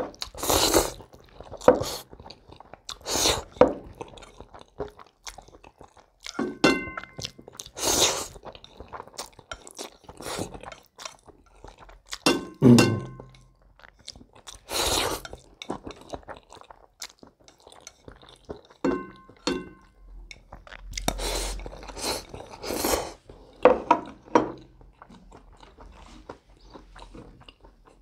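Close-miked slurping and chewing of spicy instant noodles eaten with chopsticks, a loud slurp every few seconds with chewing between. Three brief light clinks of chopsticks or dishes come in among the slurps.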